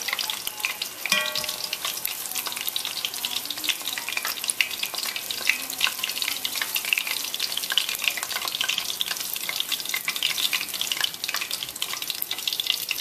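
Pulled-pork-filled wontons deep-frying in hot oil: a steady, dense crackle and sizzle. A brief ringing tone sounds about a second in.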